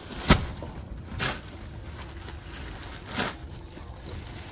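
Three sharp knocks on the boat, the first just after the start and the loudest, the others about a second and three seconds in, over a steady low rumble.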